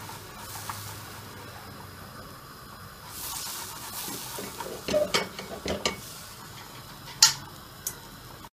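Butter sizzling faintly in a stainless steel pot as it is stirred with a ladle, followed by a few sharp knocks and clinks, the loudest between four and six seconds in and one more near the end, from a metal box grater being worked over a plate.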